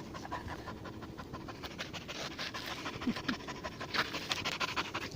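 A dog panting quickly and evenly, worn out from several minutes of play.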